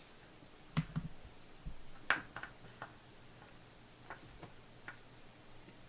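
Scattered light clicks and taps of plastic Play-Doh playset pieces being handled, about ten irregular knocks over a few seconds.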